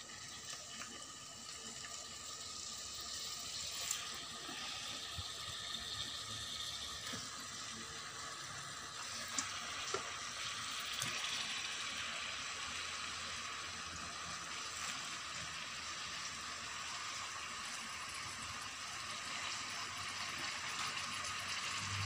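Garlic, onion and raw chicken sizzling in oil in a rice cooker's aluminium pot: a steady hiss that slowly grows louder as the pot heats. A few light knocks come as the chicken pieces are moved about.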